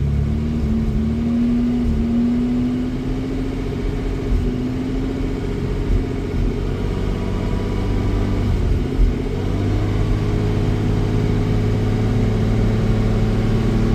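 A 1987 Jaguar XJ-S 3.6's straight-six engine pulling slowly up through the low revs under load, its pitch rising gradually and then holding. It stumbles unevenly a few times, a misfire that makes it struggle as the throttle demand increases below 2,000 rpm.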